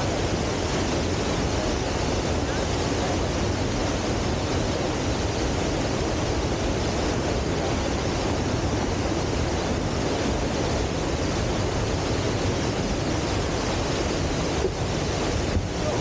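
Dry Falls, a tall waterfall in heavy flow, roaring steadily as the water plunges into its pool.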